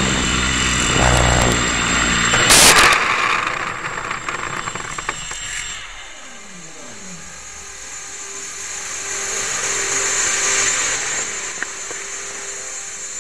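A small motor runs with a low hum, broken by a brief loud burst of noise about two and a half seconds in. Around six to seven seconds in the motor winds down, its pitch falling, and a steady hiss is left.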